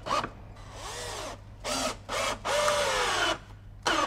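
Cordless drill run in several short bursts, its motor speeding up and slowing down with each pull of the trigger, drilling screw holes in a thick PVC plate.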